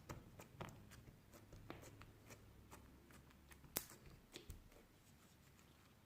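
Faint, irregular small clicks and taps from hands handling toys, about nine in all, the sharpest a little past the middle.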